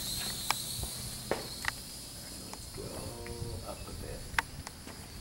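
Small quadcopter drone's propellers whining high and steady overhead, fading over the first couple of seconds as the drone climbs away. Scattered light clicks and a brief faint voice come about three seconds in.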